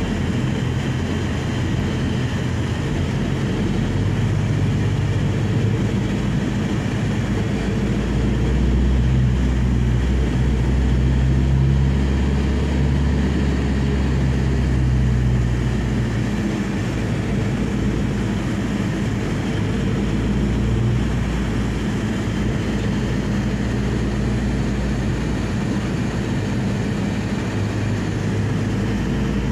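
Steady engine and road noise heard from inside a moving passenger van, a low drone that swells somewhat about a third of the way in and then settles again.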